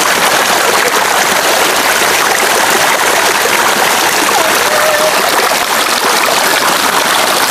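Shallow stream flowing steadily: an even rush of running water.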